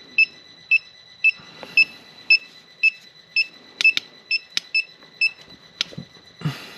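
Electronic circuit breaker finder beeping steadily, about two short high beeps a second, with a few sharp clicks partway through.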